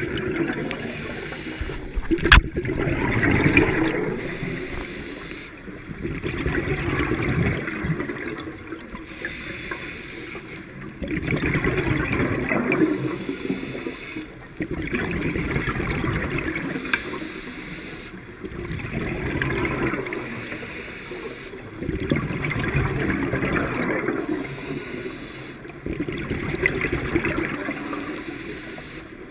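Waves washing in and draining back, swelling and fading about every four seconds, with a single sharp click about two seconds in.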